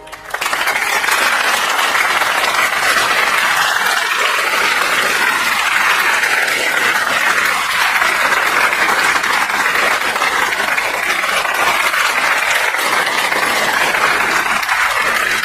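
Audience applauding: dense, steady clapping that breaks out just after the orchestra stops.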